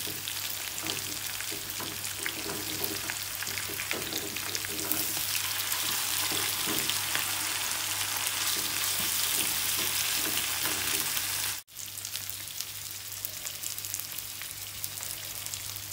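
Masala-coated sardines sizzling and crackling as they shallow-fry in hot coconut oil, with a wooden spatula scraping and turning them in the pan. The sizzle grows louder partway through, cuts off abruptly about twelve seconds in, then goes on more softly.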